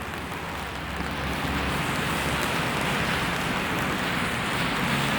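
Steady rain hissing in a city street, with a low traffic rumble beneath it. The hiss grows a little louder about a second in.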